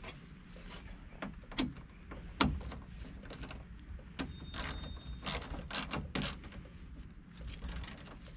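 Irregular metallic clicks, knocks and short scrapes of a hand tool and the fastener as the battery hold-down bracket is tightened down.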